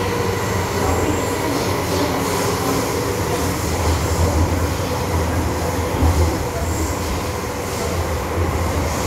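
MTR M-Train electric multiple unit running at speed, heard from inside the passenger car: a steady low rumble of wheels on rail with a faint steady whine above it.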